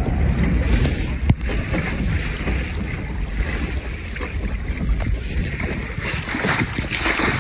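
Wind buffeting the microphone over water sloshing against a Pacer sailing dinghy's hull under way, with brighter splashing near the end. One sharp knock comes about a second in.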